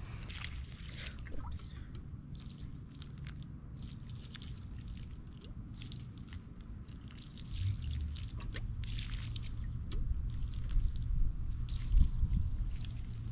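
Water splashing and dripping onto garden soil as lettuce is watered, coming in short irregular spurts over a low rumble that grows louder about halfway through.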